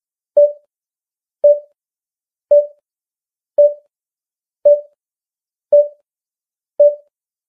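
Intro sound effect: a short electronic beep at one mid pitch, repeated seven times about once a second, each dying away quickly.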